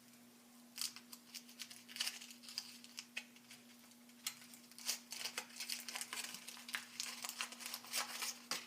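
Crinkling and tearing of a Yowie chocolate's wrapper as it is peeled off by hand, in irregular crackles and rustles, over a steady low hum.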